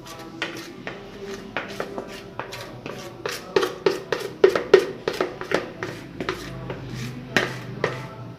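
A utensil knocking and scraping against kitchenware in quick, irregular clicks, over quiet background music.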